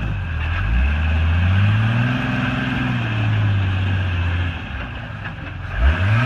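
Jeep Wrangler's engine under load crawling over rocks: it revs up, holds, eases back to a steady pull, then gets a sharp burst of throttle near the end.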